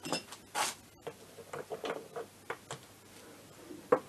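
Handling sounds as the scooter's electric starter motor is fitted into the engine casing: a brief rustle, a scatter of short metal clicks and taps, and a sharper click near the end as the starter is pushed into its seat.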